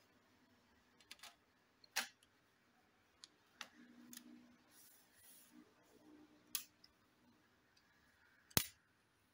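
Plastic bottom cover of an HP EliteBook 840 G1 laptop being pressed onto the chassis, clipping into place with a scattered series of sharp clicks, the loudest near the end.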